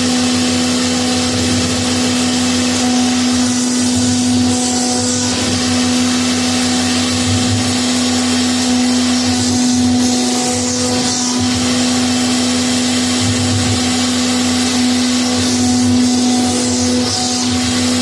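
CNC router spindle running at a steady high speed, a constant hum with a high hiss that swells and eases every few seconds as the bit cuts a design into a door panel.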